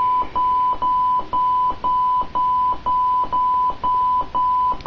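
Honeywell security alarm keypad's sounder beeping a steady high tone about twice a second: the exit-delay countdown after arming away.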